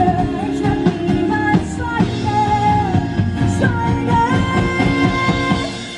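Live rock-style song: a woman singing long held notes over guitar and a steady beat. The music fades out near the end.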